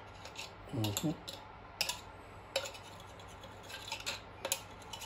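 A handful of sharp metallic clicks and clinks, spaced irregularly, as a red pump oil can is worked over an aluminium motorcycle cam cover to oil the rocker bores.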